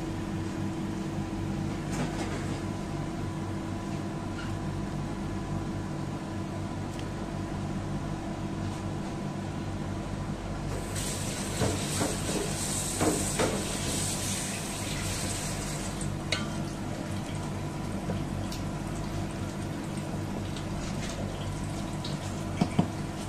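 Water sounds over a steady hum: chicken soup bubbling in a stainless steel pot, with a louder rush of running water for about five seconds midway.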